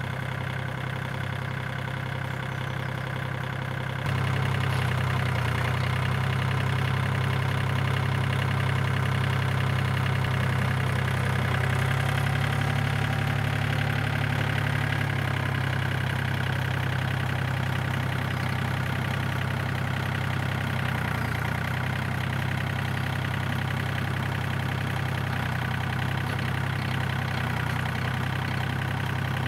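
Kubota L2550 compact tractor's diesel engine running steadily, a little louder from about four seconds in as the front loader lifts and carries a log.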